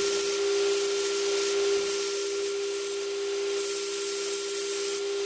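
Belt grinder running with a steady hum while a small steel part is pressed against the abrasive belt on the contact wheel, grinding with a steady hiss.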